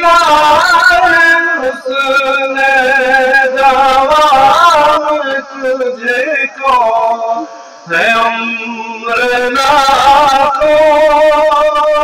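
A man singing a naat, a devotional poem in praise of the Prophet, unaccompanied into a microphone. He sings in long phrases of held, wavering notes and breaks briefly for breath a few times.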